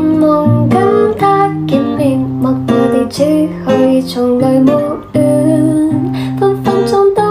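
Background music: a melody over held low notes with a regular light beat.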